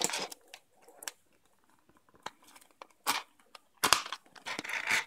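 A thin plastic container being squeezed and flexed by hand while a cable is worked through holes in its side: irregular crackles, clicks and rustles, sparse in the middle and louder in a cluster near the end.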